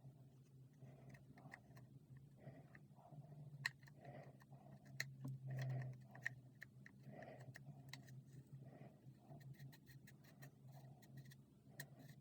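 Faint, scattered clicks and light taps over a steady low hum, with a slightly louder cluster of taps around the middle.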